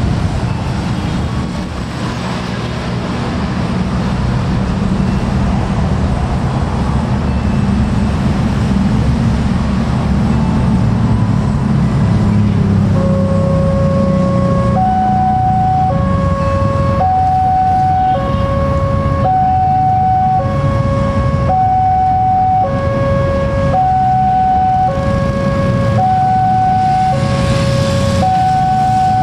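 Railway level-crossing warning alarm sounding: two electronic tones, one low and one high, alternate evenly, each held a little over half a second. It starts about halfway through, over the rumble of road traffic.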